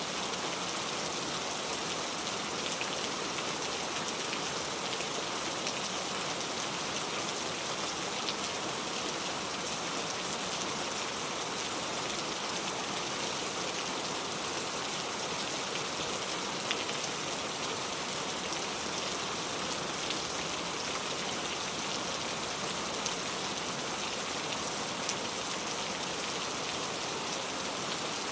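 Steady rain falling and pattering on a surface, an even hiss with scattered individual drop ticks.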